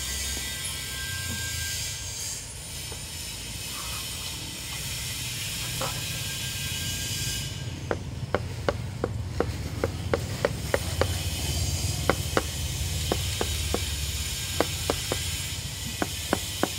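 Hammering on the building site: a quick, uneven run of sharp knocks that starts about halfway in and goes on in clusters, over a steady low rumble and hiss.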